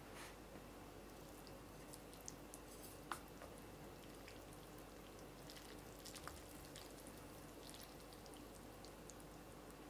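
Chopsticks stirring and lifting instant noodles out of broth in a bowl: faint, scattered wet drips and small clicks, with one sharper click about three seconds in.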